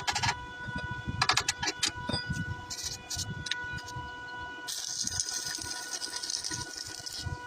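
Welding: short bursts of crackling and clicks, then from about five seconds in a steady high hiss lasting a couple of seconds, over a constant electrical hum.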